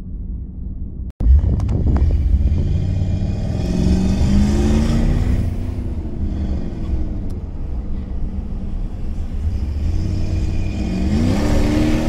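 Jeep Grand Cherokee 4.7 V8 engine and road noise heard from inside the cabin while accelerating along a highway, after a brief dropout about a second in. The engine note climbs a few seconds in and again near the end.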